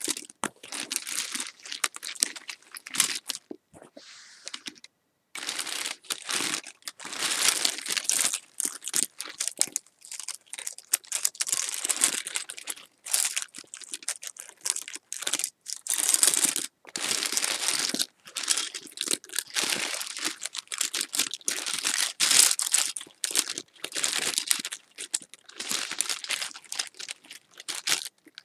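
Close-up crinkling and crumpling, in dense, irregular crackly bursts, with a short pause about five seconds in.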